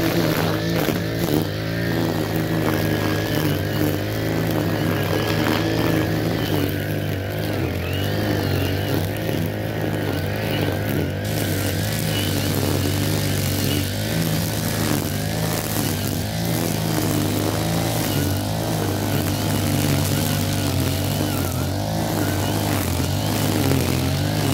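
Brush cutter's small petrol engine running steadily at cutting speed while it trims grass, its pitch wavering slightly as the head sweeps through the grass.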